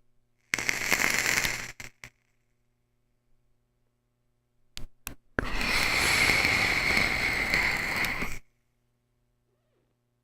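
Electronic vaporizer being puffed on twice, its coil crackling and hissing under each draw: a short puff of just over a second near the start, then a longer puff of about three seconds. A few short clicks come just before each puff.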